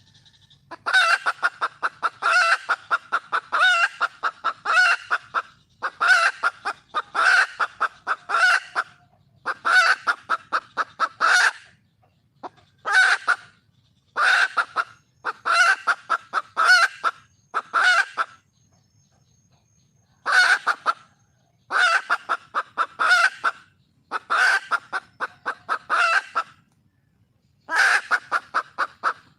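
A red junglefowl hen (wild hen) giving its mate-seeking call to draw a male. It repeats runs of quick, sharp clucks, each run about a second long, with short pauses between and a few longer breaks.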